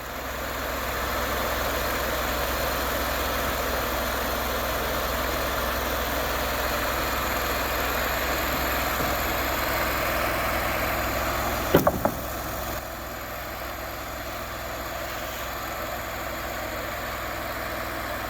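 Engine idling steadily, with a single sharp knock about twelve seconds in, after which it runs a little quieter.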